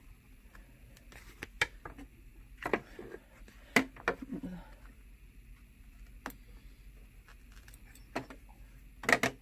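Small embroidery scissors snipping the extra threads on felt held in an embroidery hoop: scattered sharp snips and clicks at irregular intervals, a cluster of them near the end.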